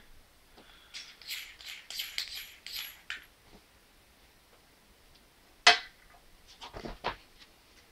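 Hands handling a handheld laser pointer and its parts: a run of light scratchy clicks, then one sharp knock a little past halfway, and a few softer clicks near the end.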